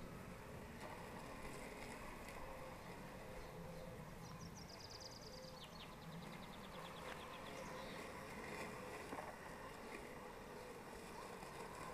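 Faint, steady electric whir of a Worx Landroid robotic lawnmower's motors as it drives over the lawn. About four seconds in, a bird gives a quick falling trill of high, rapid notes.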